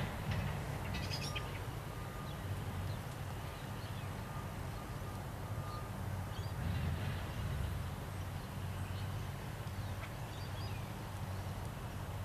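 Kobelco excavator's diesel engine running with a steady low hum, swelling slightly about two-thirds of the way in, while birds call briefly several times over it.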